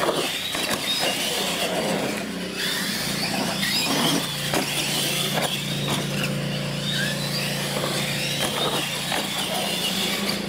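Radio-controlled monster trucks racing on a concrete floor: electric motors whining up and down in pitch as the throttle is worked, with repeated sharp knocks and clatters as the trucks hit ramps and land.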